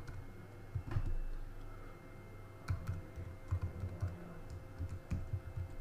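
Computer keyboard being typed on in short bursts of quick key clicks, over a faint steady hum.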